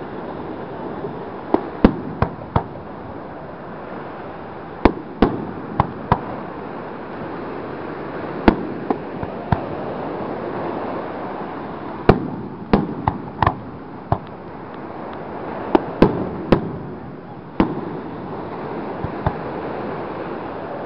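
Aerial fireworks shells bursting: sharp booms and cracks at irregular intervals, several in quick clusters, over the steady wash of surf.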